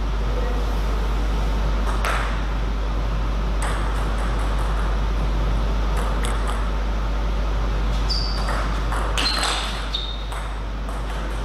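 Table tennis ball clicking off bats and the table: scattered sharp ticks, a few with a short high ping near the end, over a steady low hum.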